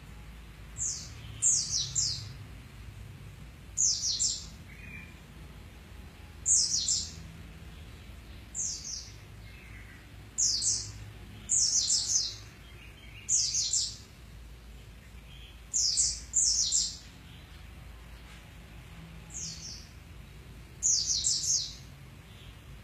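A bird chirping: short, high, downward-sliding chirps, often two or three in quick succession, repeating every second or two over a faint steady low hum.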